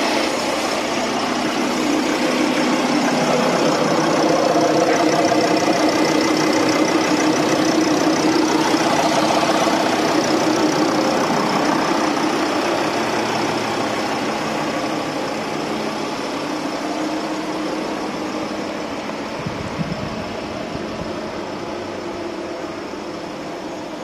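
Volkswagen Crafter minibus's diesel engine idling steadily with the bonnet open, growing gradually fainter over the second half.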